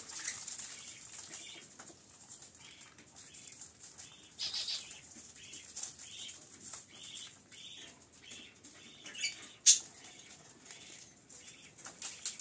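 Caged budgerigars giving short chirping calls, about two a second, with some wing flapping. A single sharp click about ten seconds in is the loudest sound.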